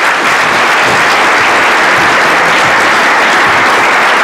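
Audience applauding steadily as a keynote speaker is welcomed to the podium.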